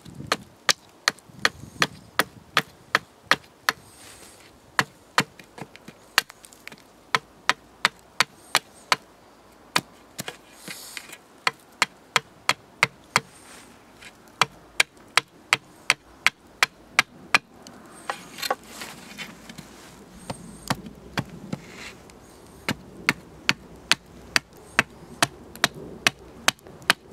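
Hatchet chopping at the end of a hazel-wood ski held on a chopping block, rounding it off: sharp strikes, about two a second, with a few short pauses.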